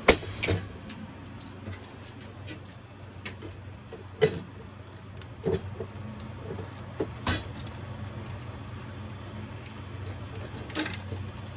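Scattered plastic clicks and knocks of wiring-harness connectors and a bill validator being handled as the validator is unplugged and lifted out of a soda vending machine door, the sharpest click at the very start, over a steady low hum.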